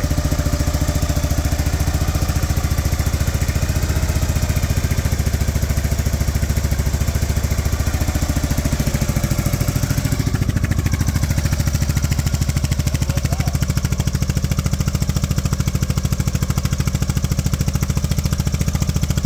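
1955 Harley-Davidson FL Panhead's 74-cubic-inch overhead-valve V-twin idling steadily, running again after sitting for about 20 years.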